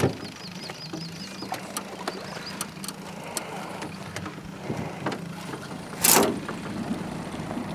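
Outboard motor idling with a steady low hum. A short, loud burst of noise cuts in about six seconds in.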